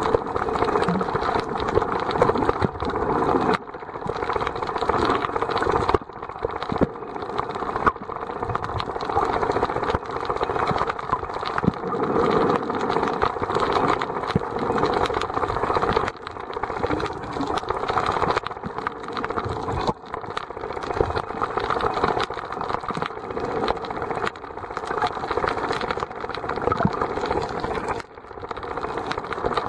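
Steady underwater noise picked up by a snorkeler's submerged camera, a dense hum and rush with faint irregular ticks, dipping briefly every few seconds.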